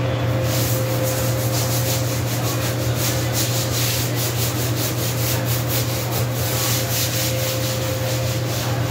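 A kitchen floor being scrubbed by hand, with rhythmic back-and-forth rubbing strokes, over a steady low hum.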